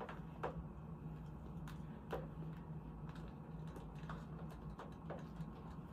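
Scattered light clicks of a plastic Foley urine drainage bag and its tubing being handled and hung on the bed frame, over a steady low hum.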